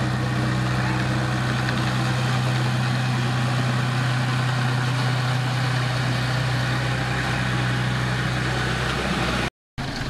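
Komatsu D20A small crawler bulldozer's diesel engine running at a steady pitch as the machine pushes soil, cutting off abruptly near the end.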